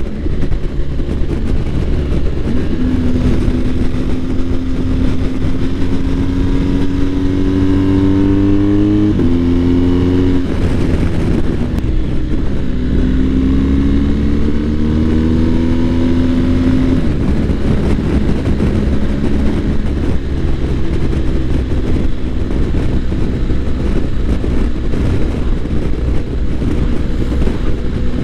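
BMW R1250 GS boxer-twin engine running under way, heard from the rider's seat over a steady rush of wind and road. The engine note climbs slowly, shifts up and down a few times around ten seconds in as the gear changes, climbs again, then holds steady for the last ten seconds.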